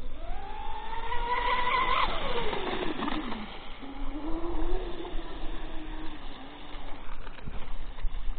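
Twin electric motors of a Minicat 820 EP RC catamaran whining. The pitch climbs for about two seconds, drops steeply, then settles into a lower steady whine that fades about seven seconds in.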